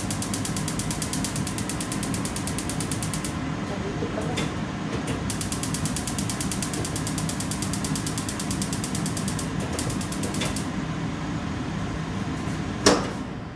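Gas hob's electric igniter clicking rapidly and evenly as a burner is lit: one run of ticking for about three seconds, then after a short pause a second run for about five seconds. A single sharp knock comes near the end.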